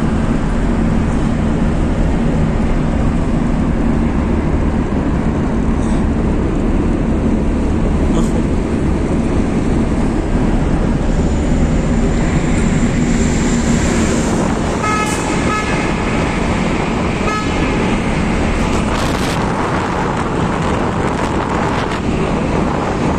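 Steady road and engine noise heard from inside a car's cabin while driving through a road tunnel. A vehicle horn sounds briefly twice, about fifteen and seventeen and a half seconds in.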